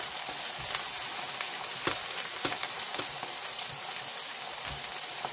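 Greasy hamburger patties and buttered buns sizzling on an electric flat-top griddle: a steady frying hiss with scattered small pops of spattering grease.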